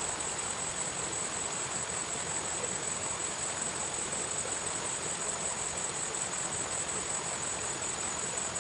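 Insects trilling steadily in a high, finely pulsing chorus over a continuous hiss.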